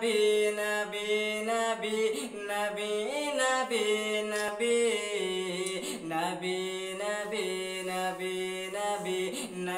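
A man singing a naat sharif, a devotional song in praise of the Prophet Muhammad, as a solo voice in long held notes that slide and waver between pitches.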